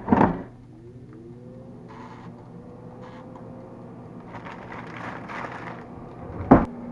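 Farberware air fryer's basket clunking into place, then the fan spinning up with a rising hum that settles into a steady run. A plastic bag of frozen crinkle-cut fries rustles twice over it, and there is a loud thump near the end.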